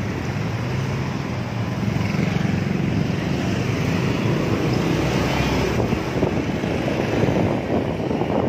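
Motorcycle engine running at riding speed, with wind buffeting the microphone.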